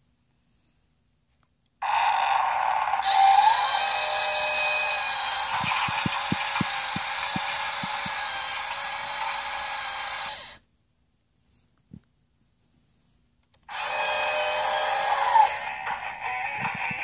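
Toy cement mixer truck's electronic sound effect from its small built-in speaker. It starts suddenly, runs for about nine seconds and cuts off, then plays again near the end.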